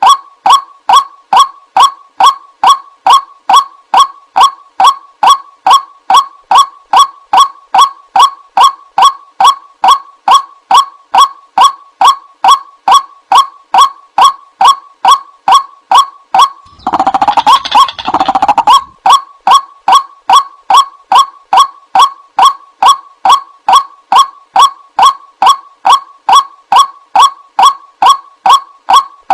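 White-breasted waterhen call played as a trapping lure: a fast, even series of short repeated notes, about two and a half a second. A little past halfway the series gives way for about two seconds to a louder, harsher pair of calls, then resumes.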